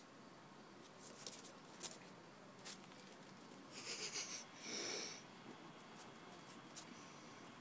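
A small dog sniffing and snorting in two short bursts about halfway through, between a few faint clicks.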